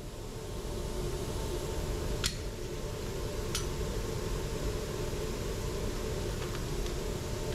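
Steady hum and rush of an indoor shooting range's ventilation system, with two sharp clicks a little over a second apart and two fainter ones near the end.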